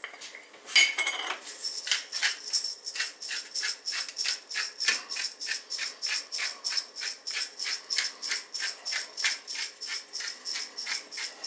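Pepper being shaken out of a shaker, a steady rhythmic rattle at about four shakes a second that starts about two seconds in.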